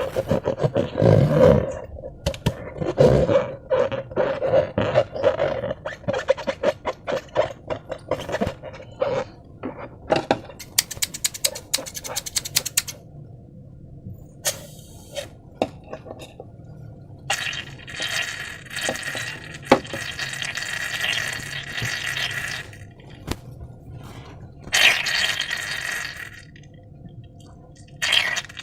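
Slime being squished and worked by hand, with a run of fast, wet, sticky crackles and squelches. Later come several stretches of hiss.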